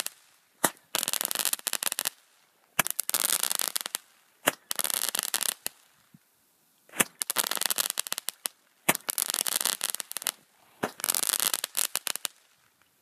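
A small consumer firework cake firing shot after shot. Six sharp pops come roughly two seconds apart, each followed by about a second of dense crackling as the crackling stars burst, stopping shortly before the end.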